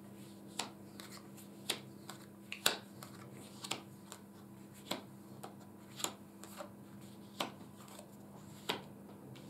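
Tarot cards dealt one at a time from the deck onto a cloth-covered table: a dozen or so soft clicks, roughly one a second, over a faint steady hum.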